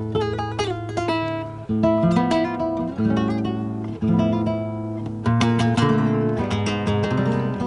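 Acoustic guitar played solo: strummed chords with quick picked notes between them, a new chord struck about every second.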